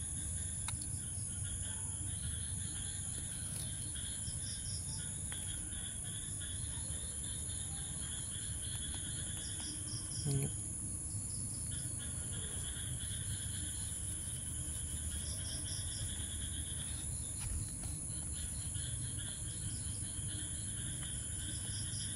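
Night insects, crickets among them, chirping in steady repeated pulses over a constant high-pitched drone, with a brief low voice sound about ten seconds in.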